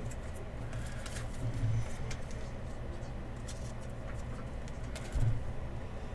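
Faint rustles and light taps of trading cards being handled and sorted, over a low steady hum.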